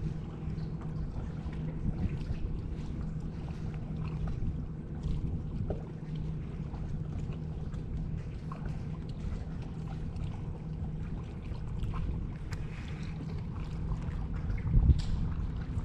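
Wind rumbling on the microphone over a steady low hum, with a louder bump near the end.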